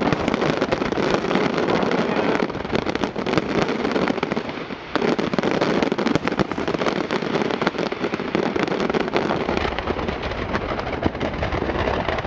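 Fireworks display in a dense barrage: continuous crackling and popping with many overlapping bangs. There is a short lull about five seconds in.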